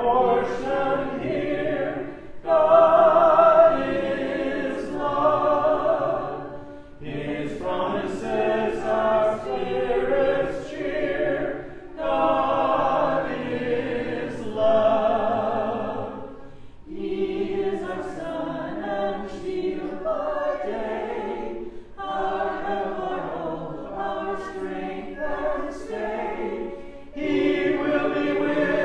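A church congregation singing a hymn a cappella, in phrases of a few seconds each with short breaths between the lines.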